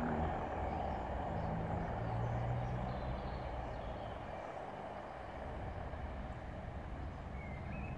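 Diesel locomotive moving away along the line: a low engine note over a steady rushing noise, slowly fading. A bird chirps near the end.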